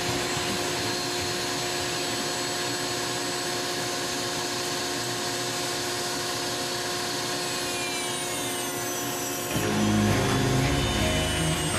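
Foredom flexible-shaft rotary tool grinding white cedar with a carbide burr, over the steady hum of a dust collector. About ten seconds in the grinding gets louder and deeper as the burr bites harder into the wood.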